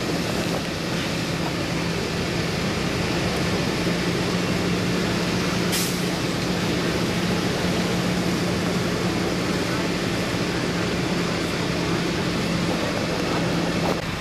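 Flatbed tow truck's engine running steadily with a constant low hum, and a brief high click about six seconds in.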